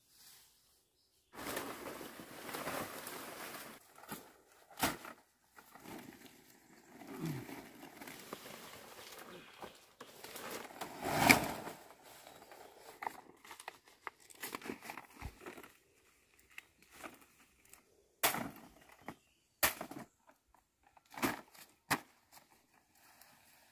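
Dong leaves and their stalks rustling and crinkling as they are handled and bundled, in uneven bursts, the loudest about eleven seconds in. Several short sharp cracks or snaps come in the second half.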